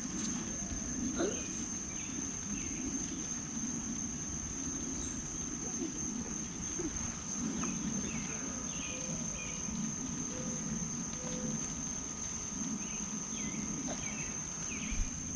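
Insects droning in one steady high tone, with scattered faint bird chirps over a low rumble; a short knock sounds about a second in and another near the end.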